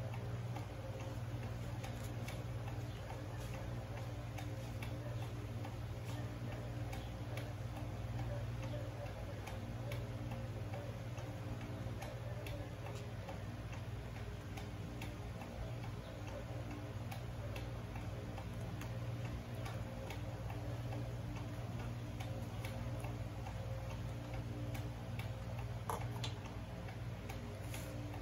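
Steady low hum with a regular light ticking running through it.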